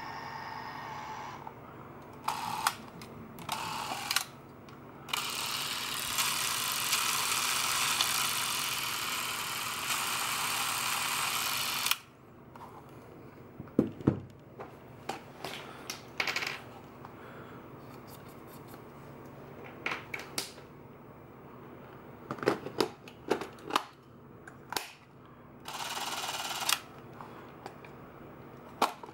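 Handling of a Revue S8 Super 8 movie camera: scattered clicks and knocks from its body, grip and film compartment door. A longer steady noisy stretch runs from about five to twelve seconds in, and a short one comes near the end.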